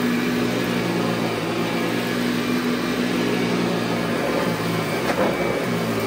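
Montgomery Ward SP8804 upright vacuum cleaner, a Eureka-built machine, running steadily as it is pushed over carpet: a constant motor hum with its suction airflow.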